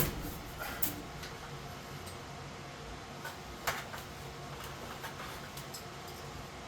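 A few sharp light clicks and knocks, spaced irregularly, over a steady low hum.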